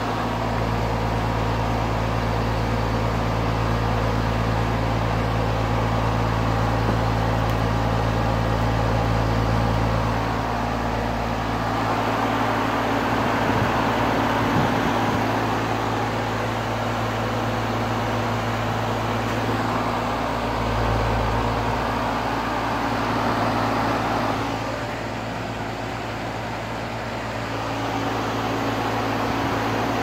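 Aire-Flo heat pump outdoor unit running in cooling mode: a steady low hum with the rush of its condenser fan, shifting somewhat in level and tone.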